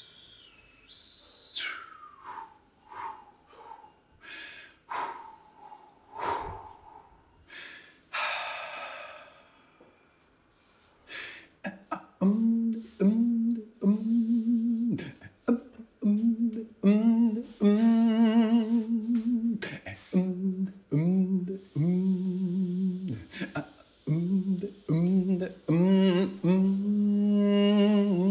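A voice improvising: about ten seconds of breathy mouth sounds, clicks and a hiss, then humming in a run of short held notes, some of them wavering, louder toward the end.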